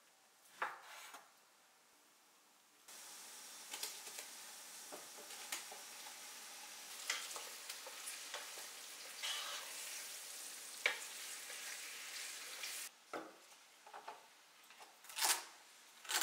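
Cubed lamb frying in hot oil with sliced onions, a steady sizzle with the clicks and scrapes of a wooden spatula stirring it in the pan. It is framed by a single knife cut through meat on a wooden cutting board near the start and, near the end, a chef's knife chopping celery sticks on the board, strikes about a second apart.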